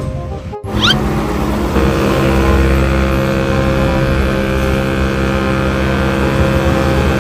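A large vehicle's engine running steadily at an even pitch, after a short rising whistle about a second in.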